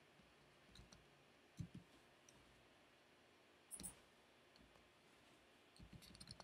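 Faint, scattered clicks of a computer mouse and keyboard over quiet room tone: a few single clicks, then a quick run of them near the end.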